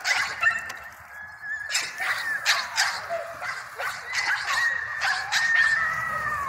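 A dog whining in long, high, drawn-out whines that slide down in pitch at their ends, one after another, with scattered short clicks.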